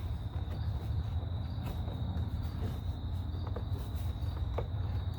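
A few faint light clicks, as the plastic door trim panel is handled and pressed into place, over a steady low rumble and a continuous high insect trill.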